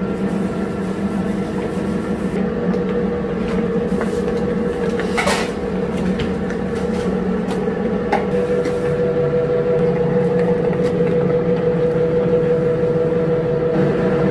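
A steady mechanical hum with a few clicks and clatters, the loudest a little over five seconds in.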